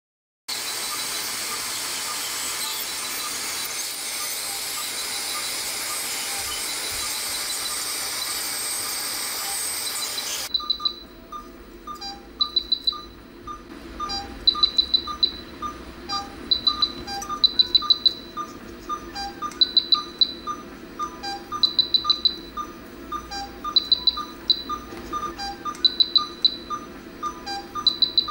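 A loud steady hiss that cuts off abruptly about ten seconds in. It is followed by a repeating pattern of short, high electronic chirping beeps in quick clusters every second or two, over fainter evenly spaced pips.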